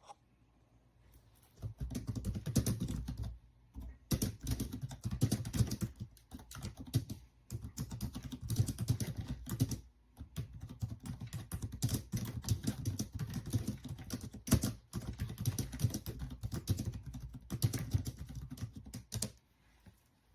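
Fast typing on the iClever BK10 ultra-slim Bluetooth keyboard: a dense run of key clicks starting about two seconds in, broken by a few short pauses, and stopping about a second before the end.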